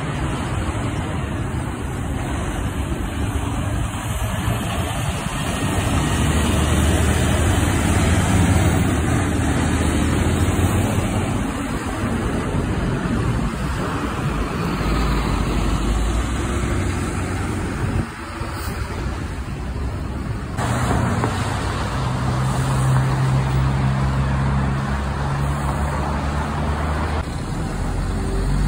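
City street traffic, with heavy diesel trucks running low and steady as they idle and pull through intersections among passing cars, tyres hissing on wet pavement. The engine pitch changes abruptly a few times as one short clip cuts to the next.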